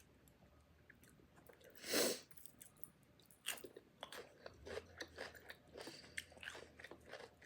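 Close-miked bite into food about two seconds in, followed by chewing with many small crunches and smacking clicks.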